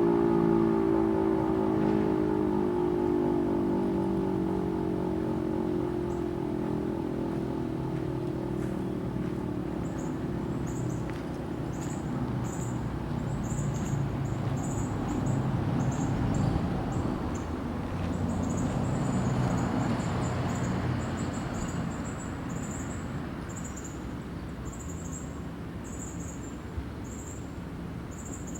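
Federal Signal Model 7 electromechanical siren winding down after its alert signal, its tone falling in pitch and fading out over about ten seconds, leaving a low rumble. From about ten seconds in, rapid high-pitched chirping pulses run alongside.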